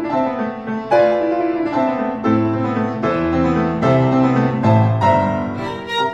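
Background music: piano playing chords and a slow melody, new notes struck about once a second.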